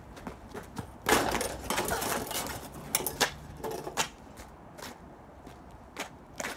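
Footsteps on snow: a stretch of scuffing noise about a second in, then a few separate soft knocks.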